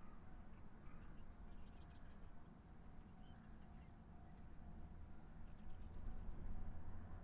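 Rural outdoor ambience: an insect calls in a steady, high-pitched pulse about twice a second, with a few short bird chirps. A low rumble swells over the last couple of seconds.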